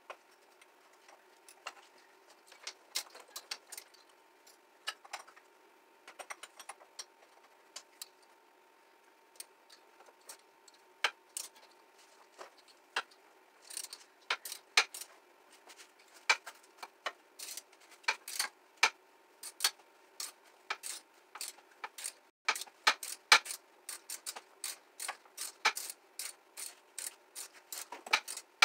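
Hand socket ratchet clicking in short runs, with metallic clicks and knocks of tools on the scooter's frame, as bolts are undone during teardown. The clicks are sparse at first and come in quicker, denser runs from about halfway.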